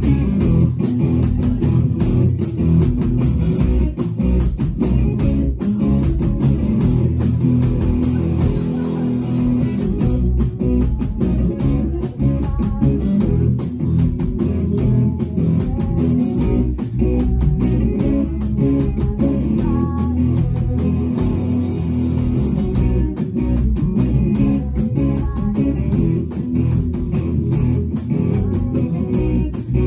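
Live rock band playing loudly: electric bass, two electric guitars and a drum kit, with a steady driving beat.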